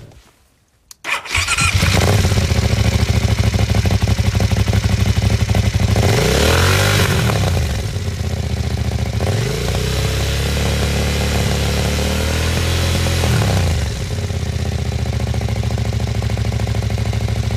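Aprilia Caponord 1200's 1197 cc V-twin running through an aftermarket SC-Project titanium-and-carbon silencer with its dB-killer fitted. The engine starts up about a second in and idles. The throttle is blipped twice, then held at higher revs for a few seconds before it drops back to idle. The exhaust note is loud and harsh.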